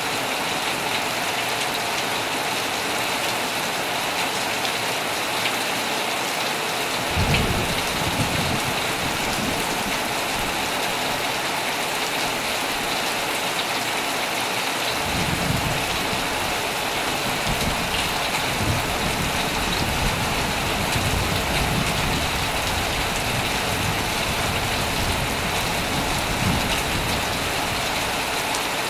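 Heavy rain drumming steadily on a tent, with low rolls of thunder: a short one about a quarter of the way in, then longer rumbling from about halfway on.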